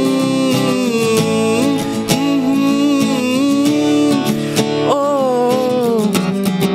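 A man's voice singing long held, wavering notes with slides between them, over a strummed acoustic guitar. A new sung phrase starts with a rising slide about five seconds in.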